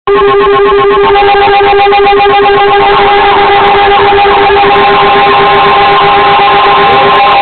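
NOAA Weather Radio broadcast received on a radio, opening a tornado warning: several steady electronic tones over heavy static, with gliding whistles from the reception. A steady high tone, the weather radio warning alarm tone, holds from about halfway through, while a lower tone stops near the end.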